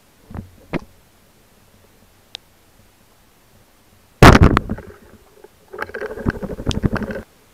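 Band-powered speargun fired underwater about four seconds in: a sudden, loud crack that dies away within half a second. About a second and a half later comes a rapid rattling clatter lasting about a second and a half.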